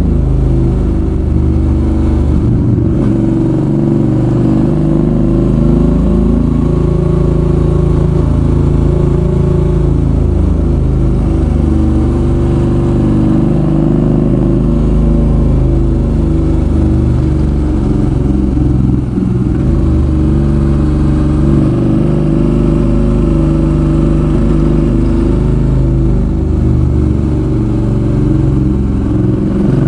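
Suzuki V-Strom 650's V-twin engine running as the motorcycle is ridden, its note rising and falling again and again with the throttle and gear changes through a series of bends.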